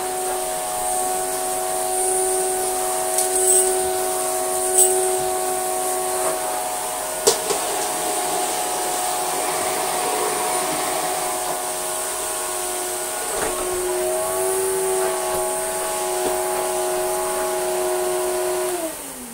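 Electrolux Slimline 185 vacuum cleaner motor running steadily with a whine, with a few sharp clicks. It is switched off near the end, its pitch falling as it winds down.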